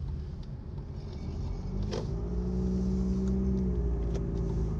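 Low, steady rumble of a running motor vehicle, with a steady engine hum that comes in about two seconds in and holds.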